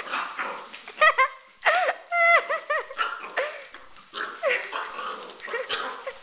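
Pembroke Welsh Corgi puppy barking at a broom: a string of short, high-pitched yaps, some coming in quick runs of two or three.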